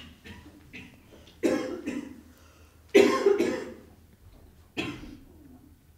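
A person coughing: about five short, sudden coughs, the loudest about three seconds in.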